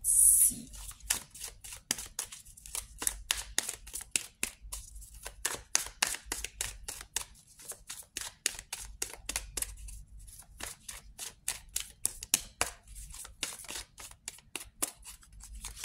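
Oracle card deck being shuffled by hand: cards slapping and clicking against each other in quick, uneven strokes, several a second, with a louder rush as the shuffle begins.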